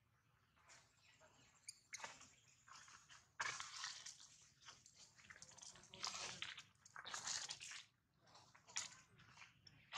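Faint, irregular rustling and scuffing noises in short bursts, with no voice or pitch.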